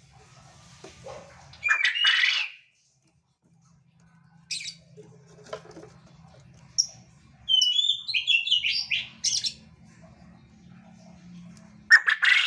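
Quail calling in bursts of short, high, sliding notes: one burst about two seconds in, a brief call a couple of seconds later, a quick run of notes in the second half, and another burst at the very end.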